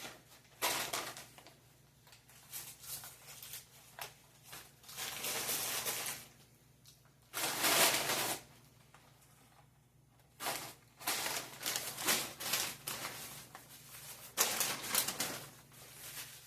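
Several bursts of crinkling and crunching from a fast-food meal being handled and eaten, the loudest about halfway through.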